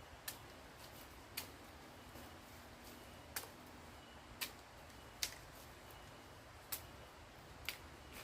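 A string of sharp, irregular clicks or snaps, roughly one a second, over a faint steady hiss.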